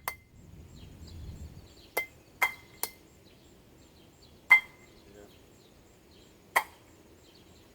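Hammer blows on metal: six sharp strikes with a short ring after most of them, irregularly spaced, knocking a part loose from the small electric motor out of a scrapped air purifier.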